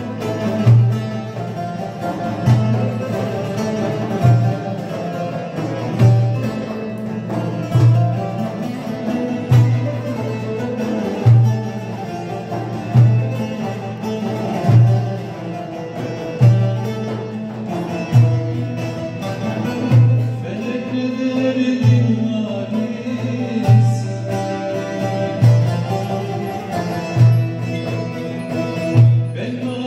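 Live Turkish folk music: two bağlamas (long-necked lutes) playing the melody over a frame drum and a metal darbuka, with a deep drum stroke about every second and a half to two seconds. Singing joins in with the instruments.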